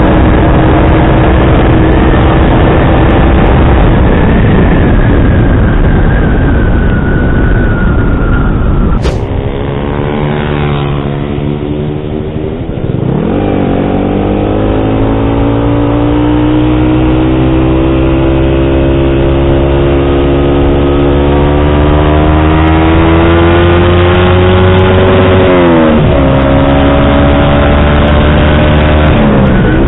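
Yamaha R15 V3's single-cylinder engine running through an SC Project exhaust with a dB killer while riding. Revs hold, then drop about a third of the way in, and climb steadily for several seconds. They fall sharply twice near the end, like gear changes.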